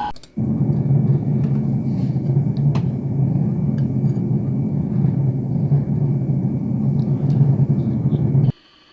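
A steady, loud low rumble that starts just after the last line and cuts off abruptly near the end, like an edited-in sound effect.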